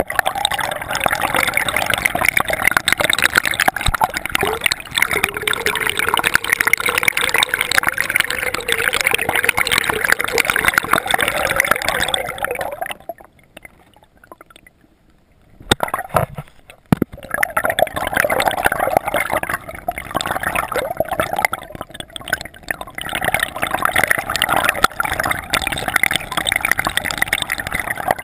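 Water sloshing and gurgling around a camera held underwater in shallow water, a dense crackling wash of sound. About halfway through it falls away for a couple of seconds, then two sharp knocks come before the water noise returns.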